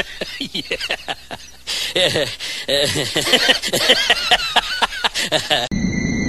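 A person's voice talking rapidly in quick short syllables. About five and a half seconds in it cuts off suddenly, and a steady hum with several high held tones begins.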